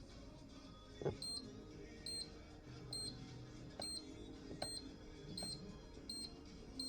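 Hoover tumble dryer control panel beeping as its button is pressed over and over to cycle through the display languages: a short high electronic beep about every 0.8 s, with faint button clicks. A louder knock sounds about a second in.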